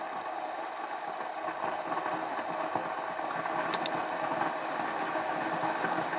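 Tommee Tippee electric steam steriliser running: water boiling into steam under the closed dome, a steady crackling hiss that slowly grows louder, with two faint ticks near the middle.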